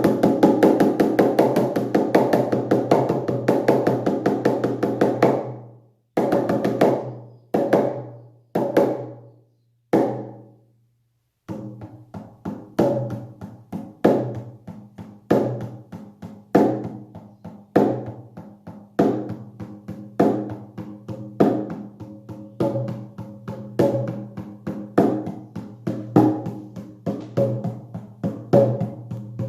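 Hand drum struck with a beater in a fast, dense roll for about five seconds, then four single ringing strikes with pauses between them. A steady beat of about two strikes a second starts near the middle and holds: the even drumming that carries a shamanic trance journey.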